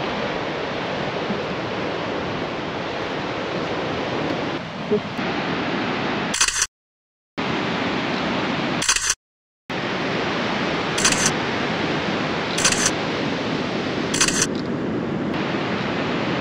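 Steady rush of ocean surf and wind on the microphone. Five short camera-shutter clicks fall a second or two apart, from about the middle onward. The sound cuts to dead silence twice for under a second each.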